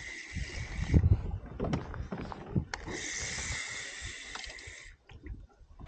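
Knocks, thumps and handling noises on a fishing kayak as a hooked perch is brought in, with two stretches of steady hiss. A sharp click comes at the very end.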